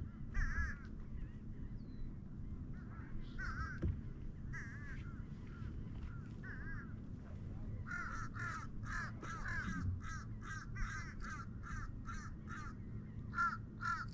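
Birds calling: short, repeated pitched calls, scattered at first, then in a quick run of about two a second through the second half.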